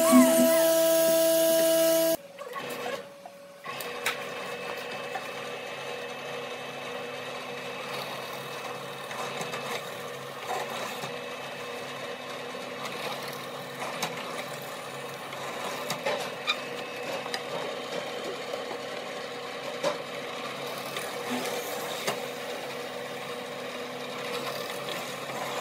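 Angle grinder fitted with a sanding disc running and sanding a wooden board, a loud steady whine that cuts off about two seconds in. After a short gap, a bench drill press runs with a steady, quieter hum while its twist bit bores into wood, with small clicks and knocks now and then.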